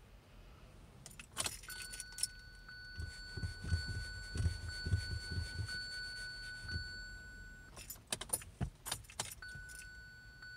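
Car keys jangling and clicking as the ignition of a 2017 Kia Sorento that won't start is tried again and again. A steady high dashboard warning tone sounds through most of it, with a run of low thuds in the middle.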